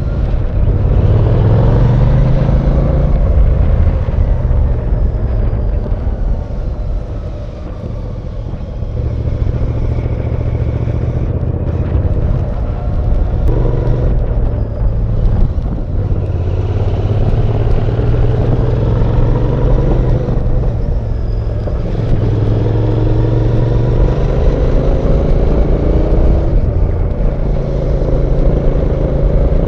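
Royal Enfield Bear 650's 648cc parallel-twin engine running under way, its revs rising and falling repeatedly with the throttle, easing off about seven seconds in before pulling again.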